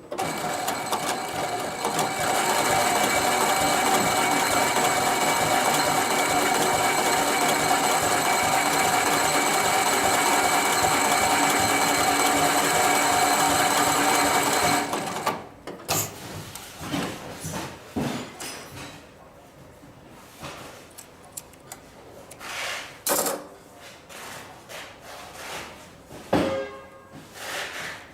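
Industrial post-bed double-needle sewing machine running steadily at speed, stitching with thick thread, then stopping abruptly about halfway through. After it stops come scattered clicks and knocks.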